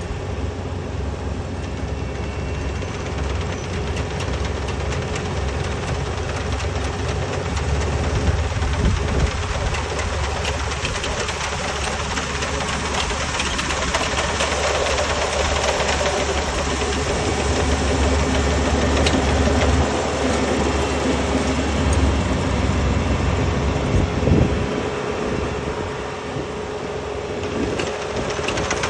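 Rice combine harvester's engine running steadily under load, a low steady drone with a rattling mechanical texture; the low drone eases off a few seconds before the end.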